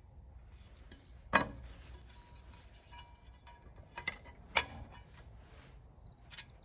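Sharp metallic clinks with brief ringing as carbide-tipped circular saw blades knock together while being handled: one loud clink about a second and a half in, and two more around four to four and a half seconds, with a few lighter ticks between.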